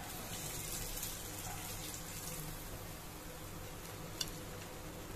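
Hot oil sizzling steadily in a frying pan around a semolina-and-flour-coated bombil (Bombay duck) fillet. The hiss is brightest in the first couple of seconds, with one light click about four seconds in.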